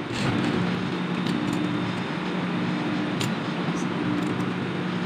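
Industrial sewing machine running, a steady hum that shifts back and forth in pitch as it stitches fabric, with a couple of light clicks about three seconds in.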